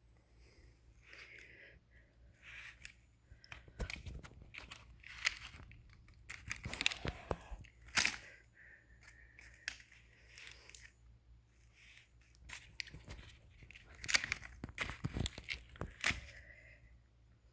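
Handling noises as a new Bosch alternator is moved about by hand: irregular rustles, crinkles and sharp knocks, several louder clusters of them.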